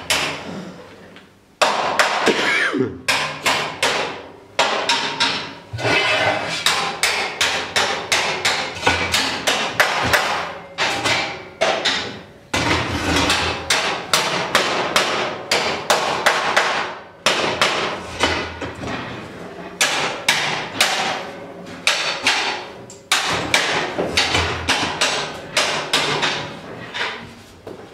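Rapid, repeated sharp knocks of metal on metal, several a second, starting about one and a half seconds in and going on with a few short breaks.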